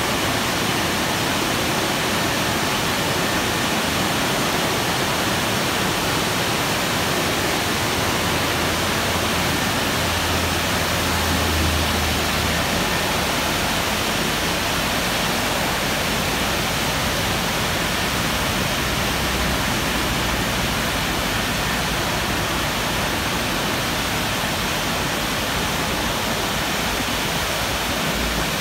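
Aquarama Stargate S4 rollover car-wash gantry at work, with a steady, even rush of spraying water. A low hum swells briefly about ten seconds in.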